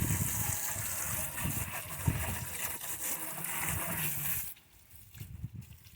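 Water gushing as a pool sand filter tank is rinsed out with a garden hose. The rush stops abruptly about four and a half seconds in, leaving faint sloshing.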